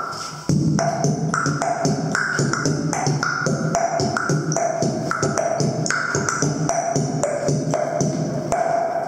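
Beatboxing through a microphone and amplifier: a steady, fast groove of vocal kick, snare and hi-hat sounds with short pitched tones between them, kicking in about half a second in after a brief dip.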